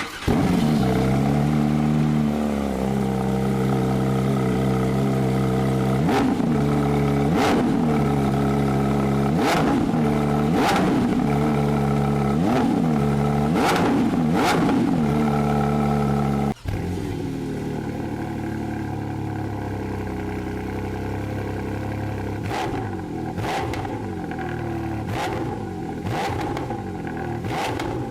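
Porsche sports car engine idling and revved in repeated short throttle blips, the pitch shooting up and dropping back each time; partway through it changes abruptly to a second car's engine, idling and blipped in quicker revs.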